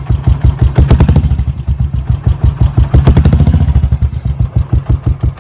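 Royal Enfield Bullet's single-cylinder four-stroke engine running with its evenly spaced, thumping exhaust beats. It is blipped louder about a second in and again about three seconds in, and grows quieter near the end.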